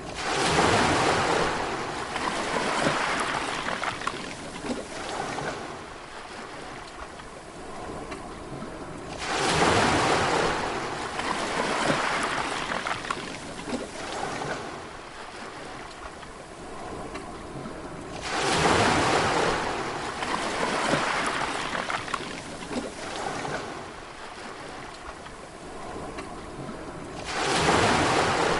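Sea waves breaking on the shore, a surge about every nine seconds, four in all, each rising quickly and washing away over several seconds.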